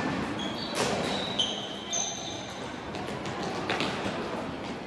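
Floorball play on an indoor court: several short, high squeaks of sports shoes on the floor in the first half, with a few sharp clicks of sticks and the plastic ball.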